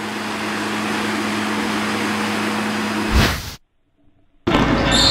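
Logo-intro sound effect: a steady rushing noise with a low hum under it, ending in a sharp hit about three seconds in. After a brief silence, a loud, bass-heavy sound cuts in near the end.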